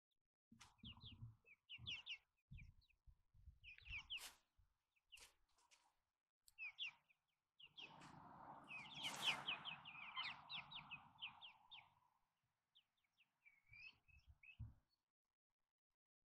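Hens chirping in quick runs of short falling notes as they peck popcorn from a plastic carrier bag, with sharp pecking taps and rustling of the bag, busiest from about 8 to 12 seconds in.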